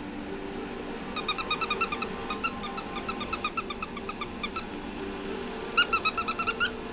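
Squeaky plush dog toy squeezed rapidly: quick runs of short, high squeaks, about eight a second. The squeaking stops for about a second past the middle and starts again briefly near the end.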